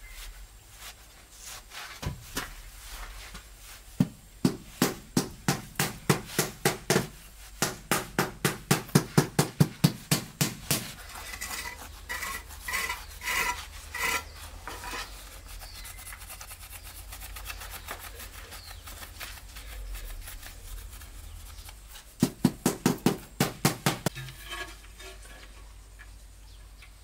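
A cloth scrubbing wood-grain floor tiles in quick back-and-forth strokes, wiping off cement residue. There are two runs of rhythmic strokes, about three a second, the second one shorter and near the end.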